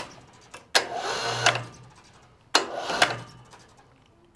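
Electric winch of a sawmill log hoist being jogged, running twice for about a second at a time to lift a log. Each run starts with a click, hums steadily while running, and ends with a clunk.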